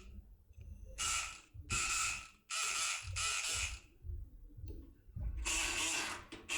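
Multipick Kronos electric pick gun buzzing in short bursts, its vibrating needle rattling the pins of a lock cylinder while it is being picked: four quick bursts in a row, then a pause and a longer burst near the end.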